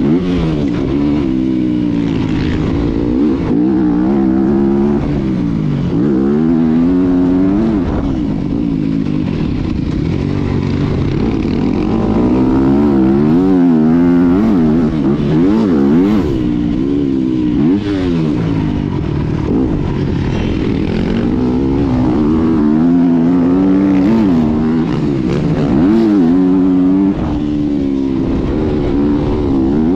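Yamaha 250 motocross bike's engine heard up close from on the bike, revving up and falling away again and again as the throttle is opened and shut around the track.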